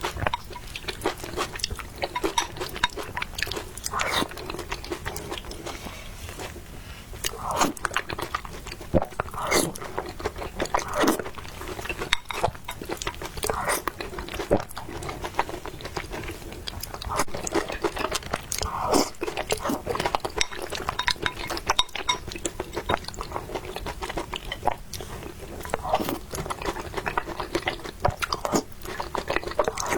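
Close-miked eating: irregular crunching bites and chewing of food, with sharp crackles scattered throughout.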